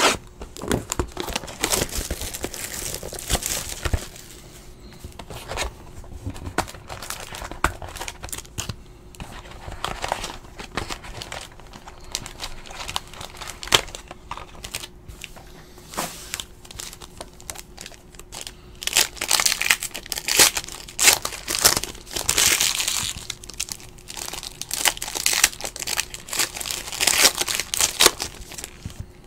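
Foil trading-card pack wrappers crinkling and tearing as packs are ripped open by hand, amid scattered clicks and knocks of handling. The crinkling comes in louder bursts in the second half.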